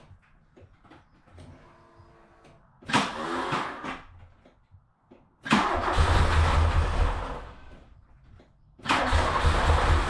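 A Mk2 VW Polo GT's four-cylinder petrol engine being cranked on the starter motor in three attempts: a short try about three seconds in, then two longer ones of two to three seconds each, as the car that cut out is tried again after being refuelled. A faint hum comes about a second before the first attempt.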